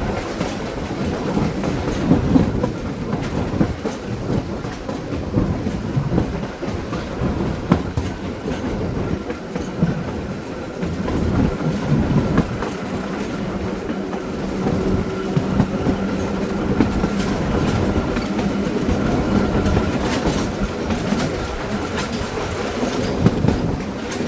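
Springfield Electric Railway No. 16, a 1926 Wason-built electric trolley car, rolling along the track: a continuous rumble with irregular clicks and knocks of the wheels over the rails. A steady hum joins in from about a third of the way through until near the end.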